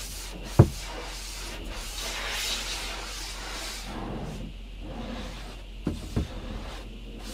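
Truck-wash water spraying on and running down the windshield and cab, heard from inside the cab as a steady hiss. A sharp knock comes about half a second in, and two softer knocks come close together near the end.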